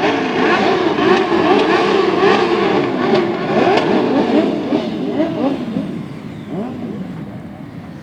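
Several off-road motorcycle engines revving up and down together, their pitches rising and falling as the riders work the throttle and change gear. The sound fades after about six seconds as they move away.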